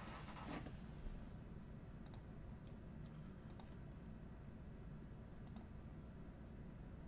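Faint handling of a sealed trading card box: a brief rustle near the start, then a few scattered sharp clicks.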